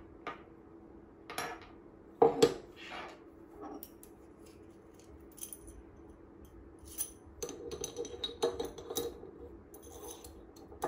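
Scattered clinks and knocks of small metal parts being handled and set down on a wooden desk: an aluminum robot weapon bar, its screws and a steel shaft. The loudest knocks come about two seconds in, and a busier run of small clicks about seven to nine seconds in.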